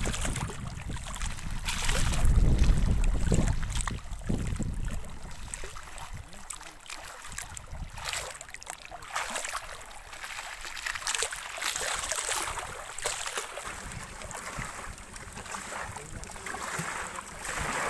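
Choppy river water splashing and lapping close to the microphone, with wind rumbling on the microphone. The wind rumble is heaviest in the first few seconds, and small splashes keep coming throughout.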